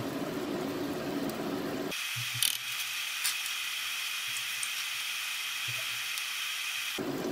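Seafood paella simmering in a wide pan on a gas burner: a steady bubbling hiss, with a couple of small pops about two and a half and three seconds in. About two seconds in the sound changes abruptly to a thinner, higher hiss.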